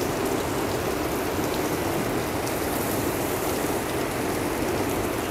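A steady, even hiss of background noise with no breaks or distinct events.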